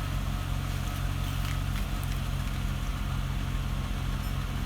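2016 Chevy Silverado's engine idling steadily after a remote start, a low even hum.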